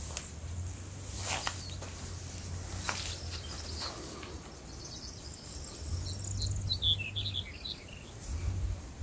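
Outdoor nature ambience: birds chirping and insects, with a quick run of high chirps about two-thirds of the way through, over a low rumble.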